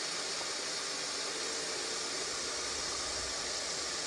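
Water filling a Bosch SKT5102EU dishwasher through its inlet valve, a steady hiss, before the circulation pump starts.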